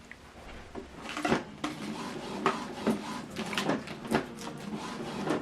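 Epson WorkForce WF-2950 inkjet printer's internal mechanism running its ink-charging initialization after new cartridges were installed: an irregular series of mechanical clicks and clunks, about one or two a second.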